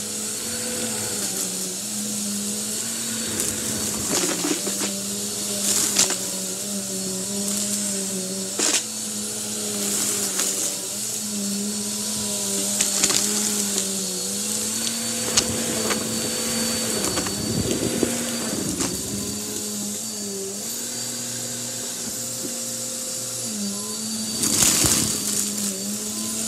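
Bissell upright vacuum cleaner running steadily on carpet as it is pushed through a pile of grey fluff, its motor hum wavering in pitch now and then. Sharp clicks come through now and then, the loudest a little before the end.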